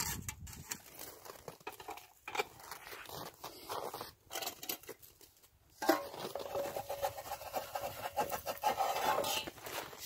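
Scattered rustling and scraping with light pattering as bird seed is scooped from a metal pail and handled, with a short near-silent pause a little past halfway, then a denser run of fine rapid ticks.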